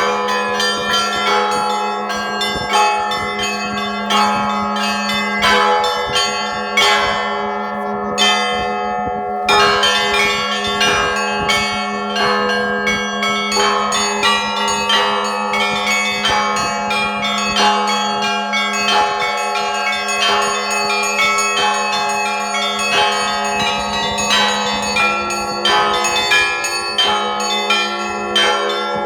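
Russian Orthodox church bells rung in a continuous peal: quick, closely spaced strikes of smaller bells over the steady hum of a larger bell.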